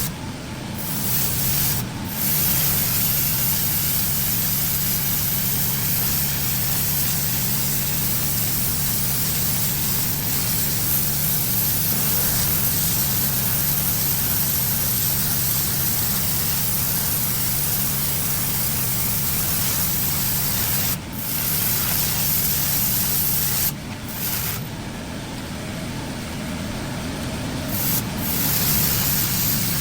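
Pressure washer blasting water onto a concrete driveway: a loud steady hiss of spray over the low, steady running of the machine's engine. The spray cuts out briefly a few times, once for several seconds near the end, while the engine keeps running.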